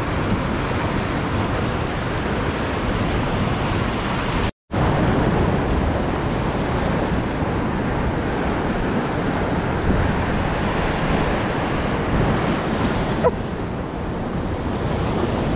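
Ocean surf breaking and washing over rocks: a steady rush of water that cuts out completely for an instant about four and a half seconds in.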